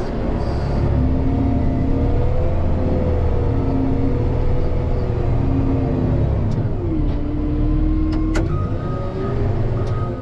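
Wheel loader's diesel engine working under load while plowing snow, its pitch dropping about two-thirds of the way through and rising again. A reversing alarm beeps near the end.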